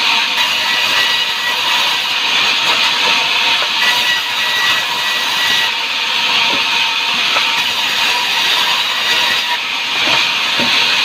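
Sawmill saw running through a log. It makes a loud, steady hissing rush with a thin, constant whine.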